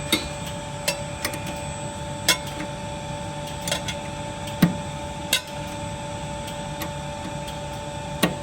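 Spanner and other hand tools clinking and knocking on metal while a nut on a motor is worked loose, in irregular sharp clicks, over a steady hum.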